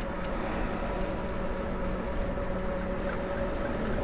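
Lectric XP electric trike riding along pavement at about 13 mph under pedal assist: a steady running noise of motor and tyres, with a constant hum.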